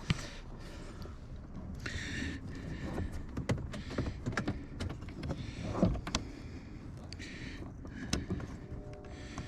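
Scattered plastic clicks, taps and knocks with brief rustling as car door trim parts are handled and fitted into place.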